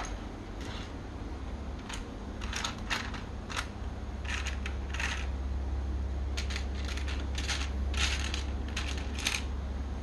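Small plastic building-toy pieces, red connector pins and black axles, being handled and set down on a hard tabletop: a string of light clicks and clatters, with a steady low hum underneath.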